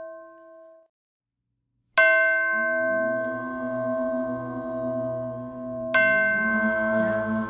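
A struck bell with long ringing overtones. An earlier ring fades into a moment of dead silence, then the bell is struck sharply about two seconds in and again about four seconds later, with a low wavering drone under it.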